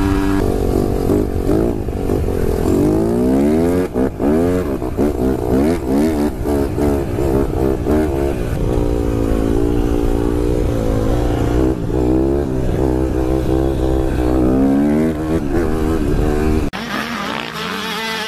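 Dirt bike engine revving up and down again and again, its pitch rising and falling with the throttle. Near the end the sound cuts abruptly to a quieter engine sound.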